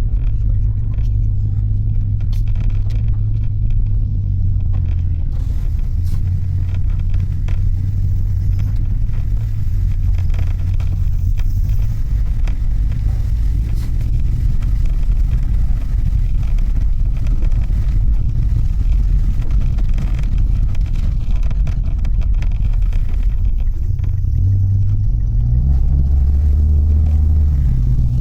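Mitsubishi Delica van on the move: a steady low engine and road rumble, with the engine note rising and shifting near the end.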